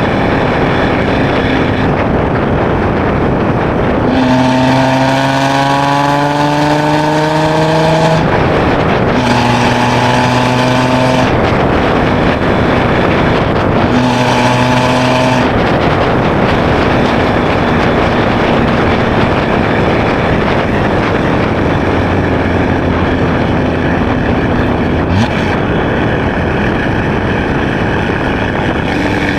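2016 Chevrolet Camaro RS with a Borla ATAK axle-back exhaust driving, with steady road and exhaust noise. About four seconds in, the engine note climbs for several seconds under acceleration, then holds steady in two shorter stretches.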